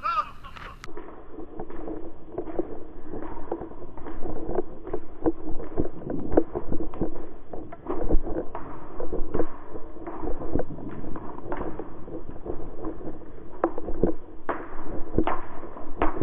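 Footsteps crunching through dry leaf litter and gear jostling against a head-mounted camera as the wearer moves quickly, giving an irregular run of sharp knocks and thumps over a steady rumbling rub.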